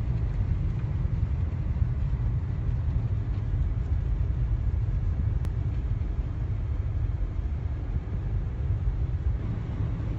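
Strong blizzard wind buffeting the microphone: a steady, gusting low rumble.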